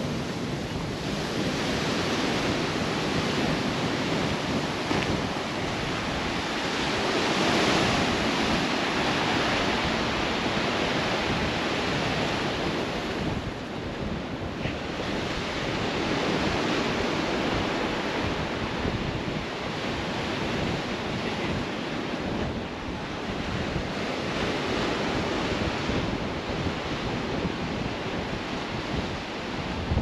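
Sea surf breaking on a rocky shore, with wind buffeting the microphone; the noise swells and eases slowly with no distinct events.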